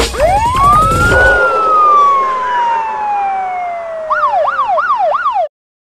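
Police siren wail winding up over the last beats of a drum and bass track, then sliding slowly down in pitch. It then switches to a fast yelp of about three sweeps a second before cutting off abruptly.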